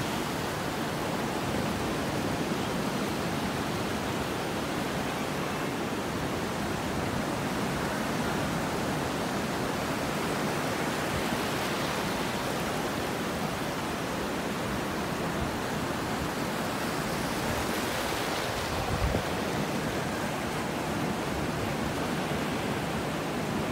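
Steady rushing wash of ocean surf breaking along the beach.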